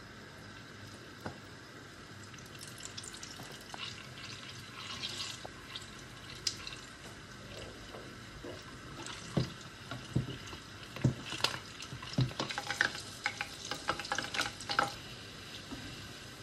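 Puff puff dough balls deep-frying in hot oil, a steady faint sizzle. From about 9 to 15 seconds in, a skimmer knocks and scrapes against the pot many times as the balls are turned.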